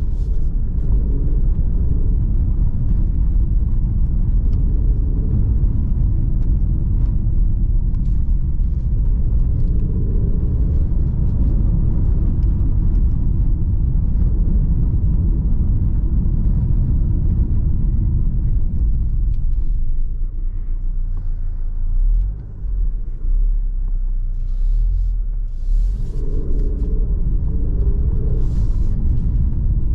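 Cabin noise of an Alfa Romeo Giulia Veloce's 2.0 turbo four-cylinder car driving slowly over cobblestones: a steady low rumble of tyres on the cobbles. It thins out for a few seconds about two-thirds of the way through, then picks up again near the end.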